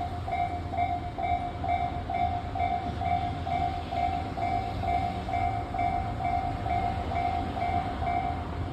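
Japanese level-crossing alarm bell ringing its repeated 'kan-kan' tone, about two strikes a second, over a steady low rumble; the ringing stops shortly before the end.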